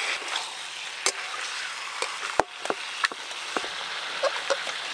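Yam stalks and hilsa fish heads sizzling in oil in a metal karahi, with a metal spatula knocking and scraping against the pan several times as they are stirred.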